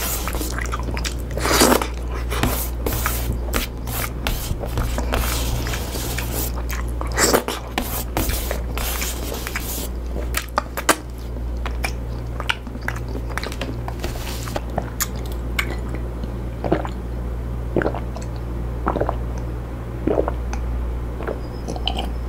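Close-up sounds of a person biting and chewing pinakbet, a Filipino vegetable stew: wet smacks and soft crunches, thick in the first half and sparser later. A steady low hum runs underneath.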